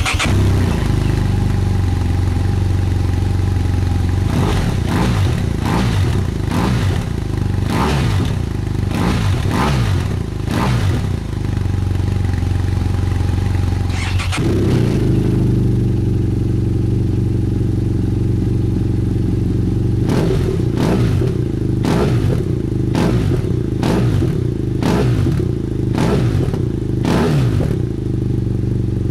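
BMW F800GS parallel-twin engine breathing through a Leo Vince Evo II slip-on silencer, idling and revved in a run of quick throttle blips with the baffle fitted. About halfway through the sound cuts abruptly to the same exhaust with the baffle removed, idling and then blipped again in another run of revs.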